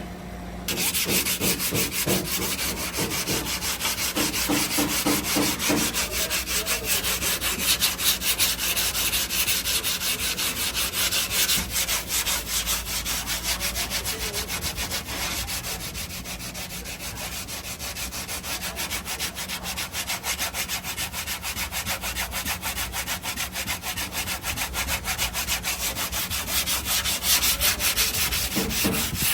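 Sanding on a car body panel: a dense, scratchy rasp made of rapid repeated strokes. It starts abruptly about a second in and keeps going, easing off a little around the middle.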